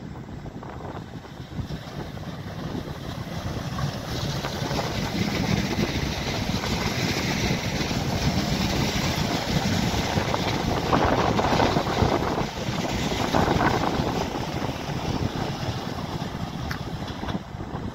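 Tyne and Wear Metro train running along the platform, its running noise building as it nears, loudest as it passes close and easing near the end, with wind buffeting the microphone.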